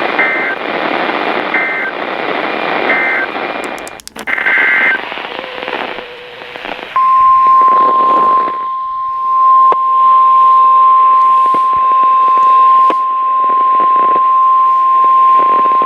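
Emergency alert broadcast received over a weather radio with a steady static hiss. It opens with short screeching bursts of the digital SAME header data, then about seven seconds in the steady single-pitch 1050 Hz NOAA Weather Radio warning alarm tone starts and holds for about nine seconds. This is the signal that a new warning message follows.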